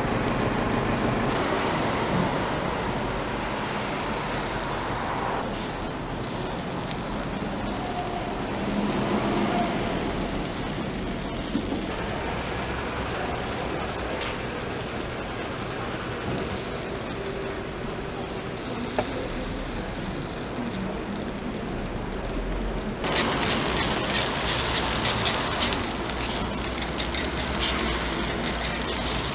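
Takoyaki batter and fillings sizzling on a hot takoyaki griddle, over a steady background of street traffic. About 23 seconds in, the sizzling turns suddenly louder and brighter, with a dense crackle.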